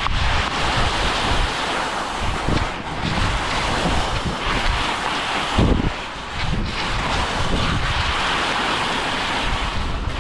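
Wind buffeting the microphone on a fast ski descent, with the hiss of skis carving snow swelling and easing from turn to turn.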